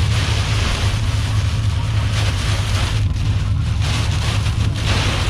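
Strong thunderstorm winds buffeting a truck: a heavy low rumble under a rushing hiss that eases briefly about three seconds in, strong enough that the truck feels about to lift off.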